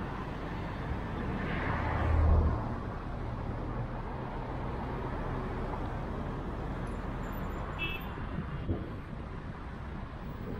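Steady road noise of a car being driven: a continuous tyre and engine rumble that swells briefly to its loudest about two seconds in.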